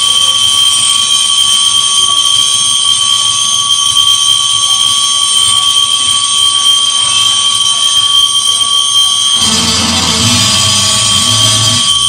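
Loud electronic noise music played from a laptop and cabled electronics: a steady drone of several fixed high-pitched tones over hiss. Near the end, a thicker, lower layer of rumbling noise comes in.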